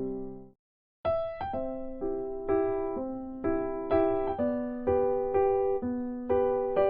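Background music: a gentle electric piano tune. It fades out about half a second in, falls silent for about half a second, then starts again with notes struck about twice a second.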